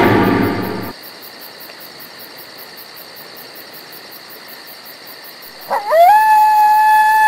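A dog howls: one long call that rises quickly and then holds a steady pitch, starting about six seconds in. Before it, a louder rough sound fades out in the first second, then a quiet stretch.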